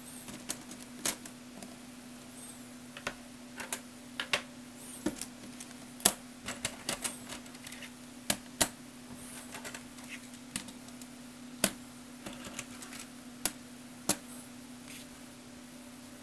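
Irregular sharp plastic clicks and clacks of Lego Technic parts being handled and set down, over a steady low hum.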